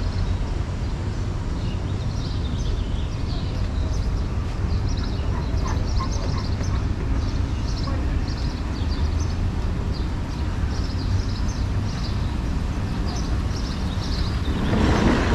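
Street ambience: a steady low rumble with small birds chirping again and again in short bursts. Near the end a louder rush of noise swells briefly.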